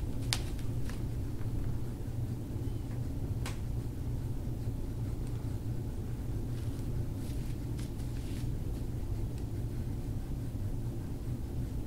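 Steady low rumble of room background noise, with a few faint clicks scattered through it.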